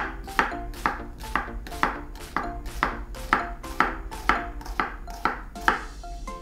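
Chef's knife chopping a red onion on a bamboo cutting board: a steady run of sharp strokes about twice a second, stopping shortly before the end.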